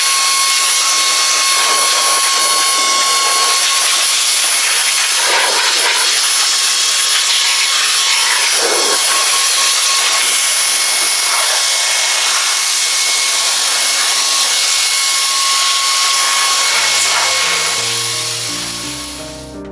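Electric air duster blowing air, a steady rushing sound with a high motor whine, used to blow water off the car while drying it. It fades out near the end as music comes in.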